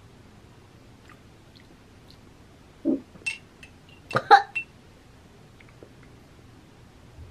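A woman's disgusted mouth and throat sounds while tasting baby food: a short low grunt about three seconds in, then a louder burst of gagging and coughing about a second later.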